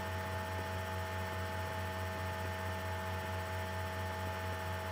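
Steady low electrical hum with a few fixed higher tones over an even hiss, unchanging throughout.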